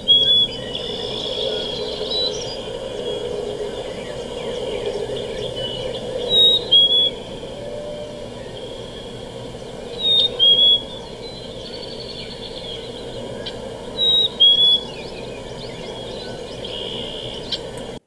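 Black-capped chickadee singing its two-note whistled fee-bee song, a higher note followed by a slightly lower one, repeated four times a few seconds apart; this is the male's song for attracting a mate and claiming territory. A steady background hiss of outdoor ambience runs beneath it.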